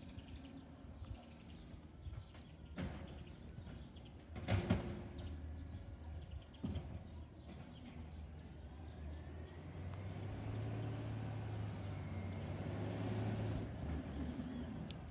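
Distant garbage truck working along the street: a low engine hum that grows louder from about ten seconds in as the truck nears. A few knocks and clatters cut through it, the loudest about four and a half seconds in.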